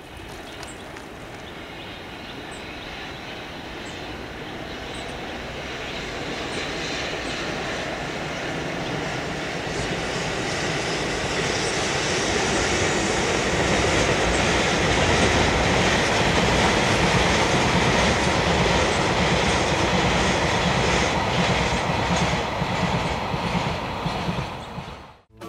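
Freight train of tank wagons hauled by an EF65 electric locomotive crossing a concrete railway bridge: a steady rumble of wheels on rail that grows louder through the first half and holds. In the later part it becomes a rhythmic clickety-clack, and it cuts off abruptly near the end.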